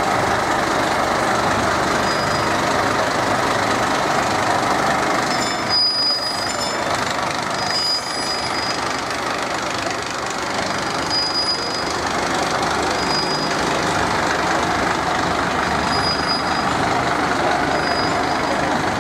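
Heavy rain drumming steadily on an umbrella, with a fire engine running close by; a thin high beep sounds briefly now and then.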